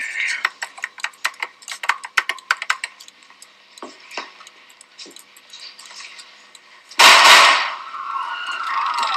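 A single loud gunshot about seven seconds in, dying away over about half a second, followed by screaming. Before it there is a quick run of light clicks and taps.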